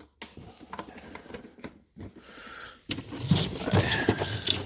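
Tools and blow-molded tool cases being handled in a toolbox drawer: light clicks and rattling, then from about three seconds in louder scraping and clunking as a case is moved.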